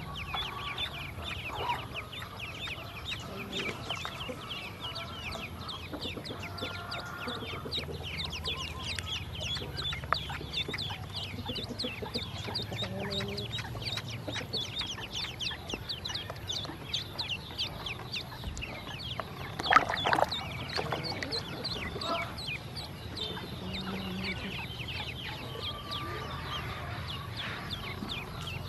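Ducklings peeping continuously: many short, high, down-slurred peeps in quick overlapping succession, with a brief louder noise about twenty seconds in.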